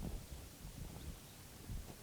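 Faint low rumble of a car heard from inside the cabin, with a light knock at the start.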